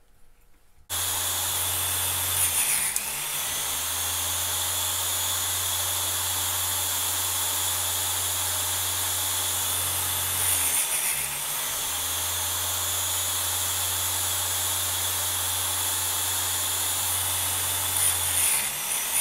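Electric chainsaw chain sharpener switching on about a second in and running steadily while its grinding wheel sharpens the chain's cutters. Three short, higher scraping bursts come as the wheel grinds a cutter, the last near the end, just before the motor stops.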